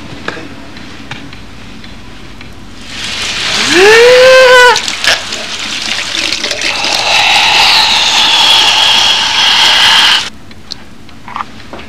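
Water gushing loudly from a hair-washing spray over a head, with a short pitched cry that rises and then falls about four seconds in. The rush of water cuts off suddenly about ten seconds in.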